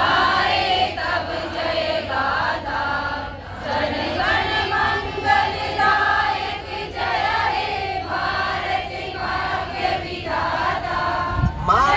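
Large crowd of young people, mostly women, singing a song together in unison, with drawn-out notes.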